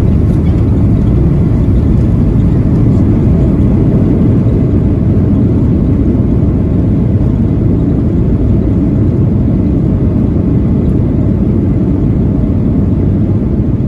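Steady, even rumble inside a Boeing 737-800's cabin in flight: the CFM56 engines and the rush of air along the fuselage, heard from a window seat, with no change in level.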